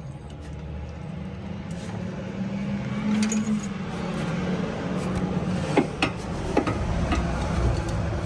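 A steady low mechanical hum that grows gradually louder, with a few sharp clicks or clinks about six seconds in.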